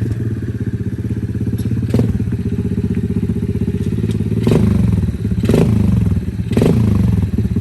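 Small 110cc ATV engine idling steadily with a rapid even beat, with a sharp knock about two seconds in and the throttle blipped up briefly three times in the second half.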